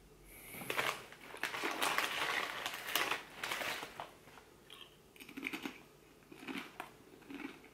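A crisp bag crinkling and crisps crunching as they are bitten and chewed: about three seconds of loud rustling and crunching, then shorter, softer chewing crunches.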